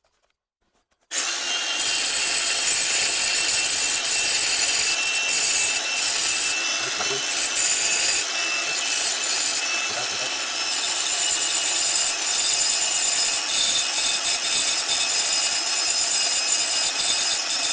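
Power tool abrading paint off car body metal down to bare metal, preparing the spot for an amplifier ground wire. It starts suddenly about a second in and runs steadily.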